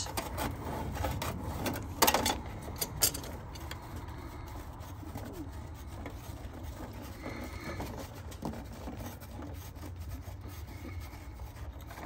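Pliers clicking against metal as the locknut on an electrical conduit fitting is unscrewed from a condenser's control box: a few sharp clicks in the first three seconds, then quieter handling of the fitting over a low steady rumble.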